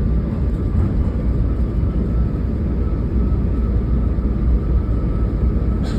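Passenger train cabin at speed: a steady low rumble of the running train, with a faint steady whine above it.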